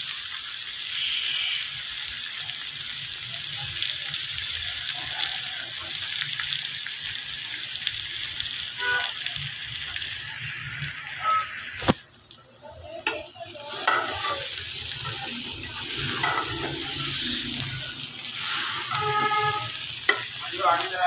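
Chopped okra, onion and green chillies sizzling steadily as they fry in oil in an aluminium pot. About halfway through there is a sharp knock, and from then on a metal spoon scrapes and stirs the vegetables against the pot.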